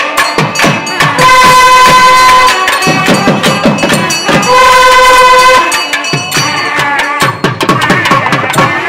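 A long brass temple horn blowing two held, steady blasts, each a little over a second long, over repeated drum strokes. From about six seconds in the drumming turns faster and denser.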